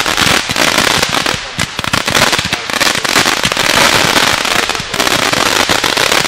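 Fireworks display with many aerial shells bursting together: a loud, dense, unbroken crackle of rapid sharp pops and bangs.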